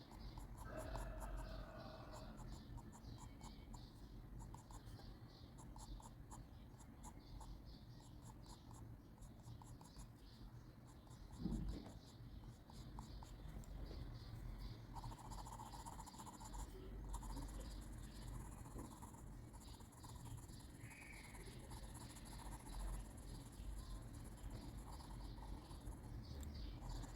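Graphite pencil scratching on paper in many short, quick strokes, with one louder thump about eleven seconds in.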